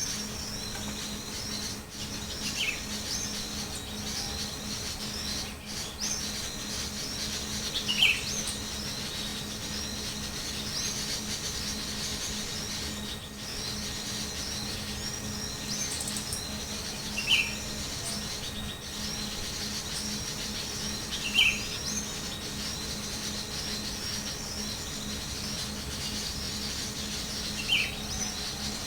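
Small birds chirping in a continuous high-pitched chatter, with a louder, short, falling chirp every four to six seconds.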